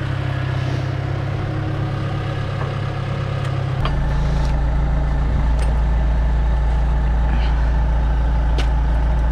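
A construction lift's engine running steadily. About four seconds in its note drops to a deeper, slightly louder hum.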